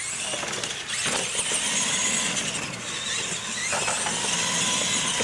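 Two radio-controlled monster trucks accelerating flat out down a dirt strip: a high whine from their electric motors and gearboxes over the rush of the big tyres on dirt, starting suddenly at the launch.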